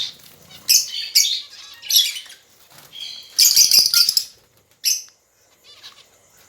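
Caged pet birds chirping in short, high-pitched bursts, with a longer flurry of chirps about three and a half seconds in.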